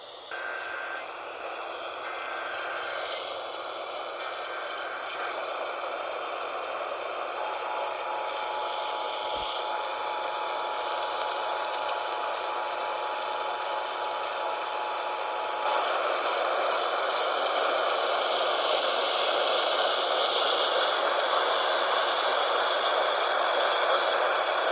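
AM radio receiver hiss and static with faint steady whistling tones, the hiss growing gradually louder with a step up about sixteen seconds in.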